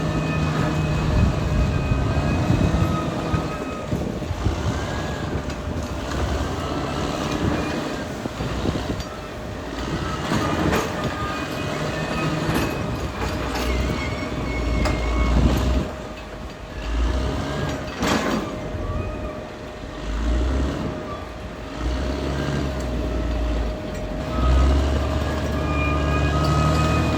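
Caterpillar D6R XL crawler bulldozer working: diesel engine running with its load rising and falling, over the clank of its steel tracks. One sharp knock about two-thirds of the way through.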